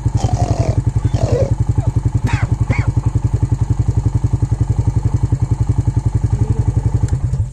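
A vehicle engine idling steadily with an even, fast throb, cutting off abruptly near the end.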